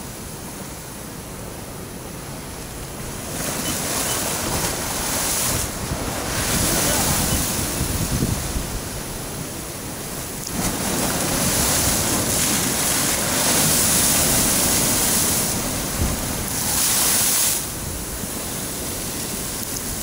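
Big ocean waves surging in and breaking against the rocks and concrete blocks at the foot of a breakwater: a rushing wash that swells to a loud peak for several seconds at a time and falls back in between, several times over.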